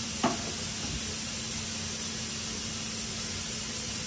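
A steady, even hiss with a faint low hum under it, and one short click a moment after the start.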